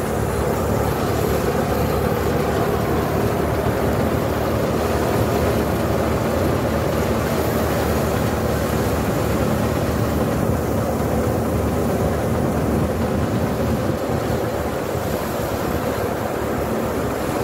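Tractor-driven threshing machine running steadily under load with its tractor engine, threshing pearl millet: a loud, even mechanical roar.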